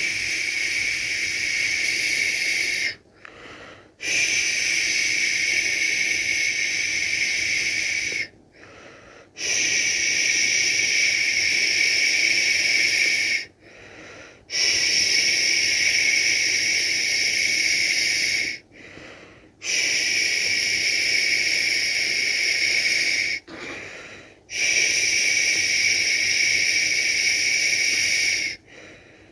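A person shushing a baby to sleep: six long "shhh" sounds of about four seconds each, separated by short pauses for breath of about a second.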